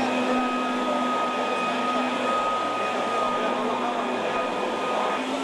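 A small motor running with a steady whirr and a faint, steady whine.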